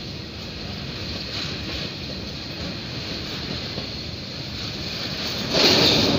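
Freight train of covered goods wagons rolling past close by: a steady rumble of steel wheels on the rails, with a louder burst of wheel and track noise near the end.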